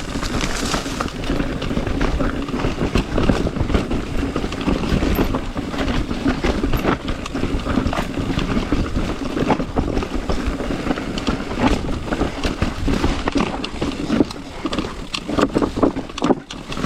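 Mountain bike riding over a rocky trail: tyres and frame knocking and rattling over rocks in a steady stream of clicks, with wind noise on the microphone.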